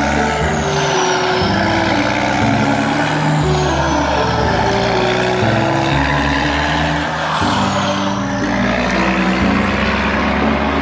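Steady, loud truck and construction-vehicle engine noise, with low notes changing in steps underneath like a tune.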